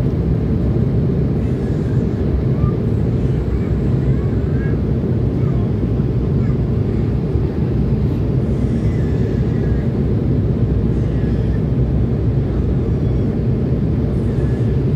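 Steady cabin noise of a jet airliner descending on final approach, heard from a window seat over the wing: a loud, even, low rumble of engine and airflow.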